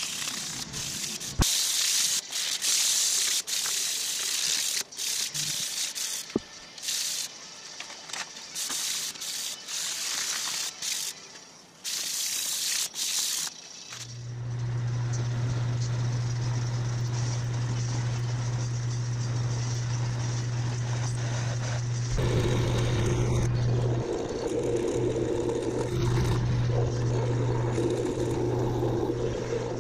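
Sandpaper rubbed by hand over a metal plate in quick, uneven rasping strokes. About halfway through it gives way to a metal lathe running with a steady hum, and a few seconds later a twist drill in the tailstock chuck starts cutting into the spinning metal bar, adding a rough grinding sound.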